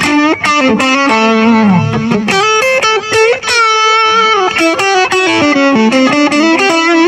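Electric guitar played through a Mooer GE200 amp-modelling multi-effects unit: a fast single-note lead line with string bends and slides.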